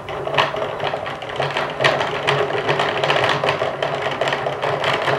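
Hand-cranked plastic yarn ball winder turning steadily, its mechanism giving a loud, continuous clatter of fine rapid clicks over a low whirr. The racket comes from poorly matched parts knocking against one another, which is how a winder maker explains it.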